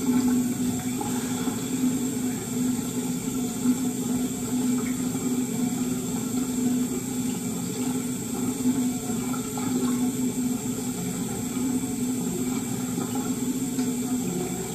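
Steady rushing of running water with a low, unchanging hum.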